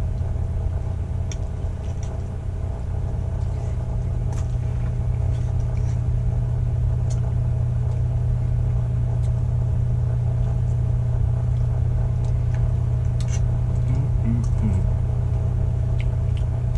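A steady low hum, with a few faint, short clicks of a metal spoon against a small metal pot.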